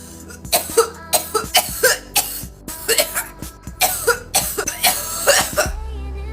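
A person in a loud coughing fit, a rapid run of about a dozen harsh coughs that stops about five and a half seconds in: the coughing that follows a big cannabis vape hit held until the pen blinks (a 'blinker'). Background music with a steady low bass runs underneath.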